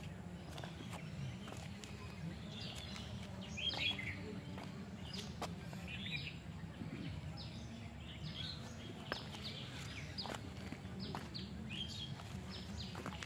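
Birds chirping in short, scattered calls over a low steady rumble, with a few faint clicks.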